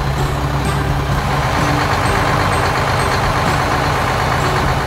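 Cartoon sound effect of a semi-truck engine running steadily, with a hissing rush that swells through the middle; short notes of background music sound faintly underneath.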